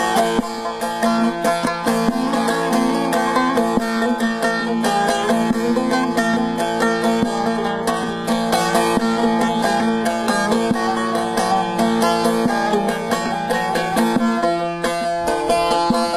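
Bağlama (Turkish long-necked saz) played solo: a fast strummed melody over steady ringing drone notes, the instrumental introduction to a folk song.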